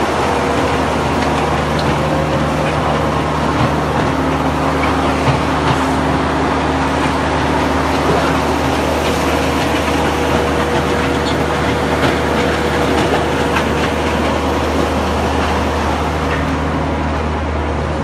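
Truck-mounted concrete mixer pump running steadily while pumping concrete: a loud, even engine drone with a low hum and no break.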